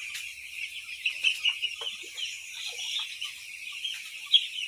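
A large flock of five-day-old broiler chicks peeping together in a constant, high-pitched chorus of overlapping chirps.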